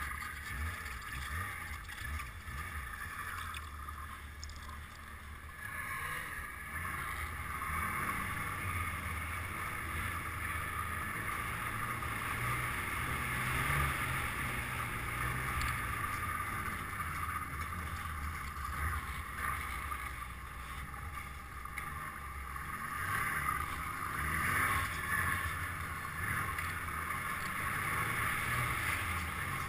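Snowmobile engine running steadily under way through deep snow, heard from on board the sled. The engine note swells and eases with the throttle and gets a little louder about six seconds in.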